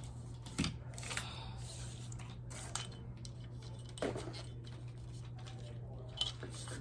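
Hands fitting together the parts of a light stand: a handful of scattered clicks and knocks from the parts being handled, over a steady low hum.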